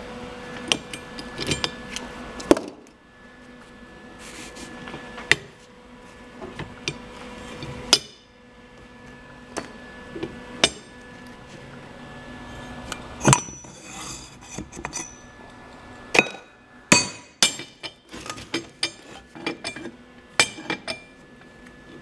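Scattered metal clanks and clinks as the steel parts of a home-built tubing bender are handled and knocked together, in irregular clusters that come thicker in the second half.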